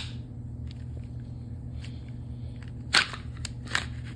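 Sharp plastic-and-metal clicks as a CZ P07 pistol, cocked and locked, is pushed into a Kydex holster. The loudest click comes about three seconds in and a smaller one follows; the holster is knocking the pistol's manual safety off as it seats.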